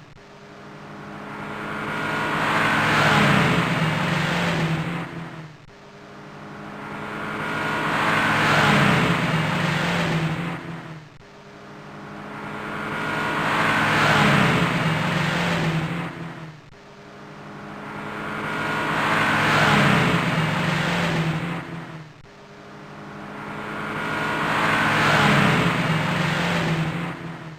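Car sound effect repeated in a loop five times: each time a steady pitched engine-like tone swells to a peak over about three seconds, fades away, then breaks off before the next one starts.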